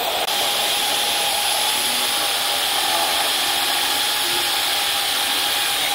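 A 710-watt bench drill press with a brushed motor running at a steady speed with a steady whine, its twist bit cutting into an aluminium casting.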